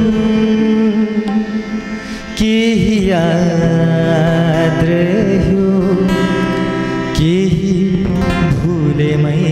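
Live Nepali ghazal music: a harmonium holds steady chords under a wavering, sliding melody line from violin and voice, with tabla and guitar accompaniment. The music dips briefly and comes back in strongly about two and a half seconds in, and again about seven seconds in.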